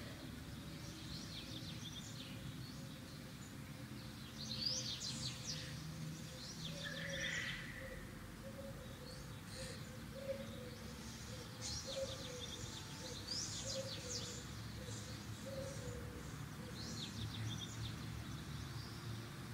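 Small birds chirping and twittering in several short runs of quick high notes, over a steady low background noise.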